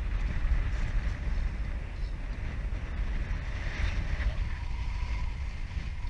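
Wind buffeting the microphone: a gusty low rumble with a steady hiss above it.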